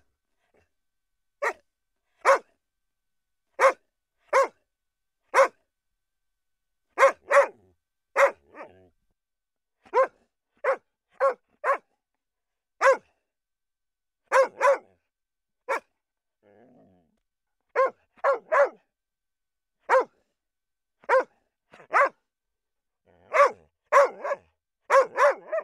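A dog barking in short, high-pitched yaps, one or two at a time and about one a second, with brief silences between.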